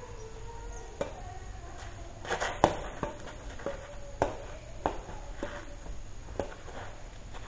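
Badminton rally: rackets striking a shuttlecock back and forth, a string of sharp smacks, the loudest about two and a half seconds in.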